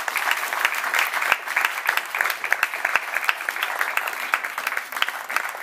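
Audience applauding: many people's hand claps running together in a dense, steady patter.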